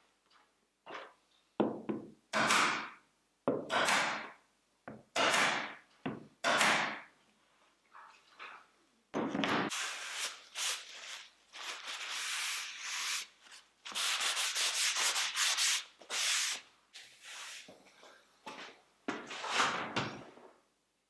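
Hand rubbing on a plywood board with a small white pad. Several separate half-second strokes come first, then from about nine seconds in a long stretch of quick, continuous back-and-forth rubbing.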